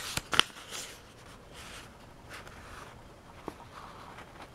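Pages of a paperback book being leafed through and handled: a couple of sharp handling knocks at the start, then soft paper rustles and a small click about three and a half seconds in.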